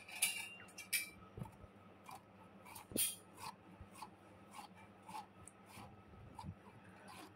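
Raw potato being cut into thin matchsticks on a bonti, a curved blade mounted on a floor board: faint, crisp slicing strokes, about two a second.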